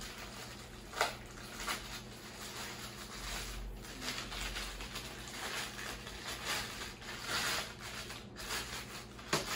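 Clear plastic packaging crinkling and rustling as a kitchen utensil is unwrapped by hand, with a sharp click about a second in.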